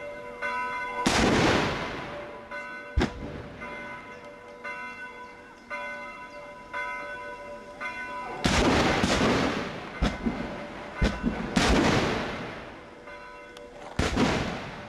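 Black-powder arquebuses firing one after another, about seven blasts, several trailing off in long echoes. Church bells ring steadily under the shots.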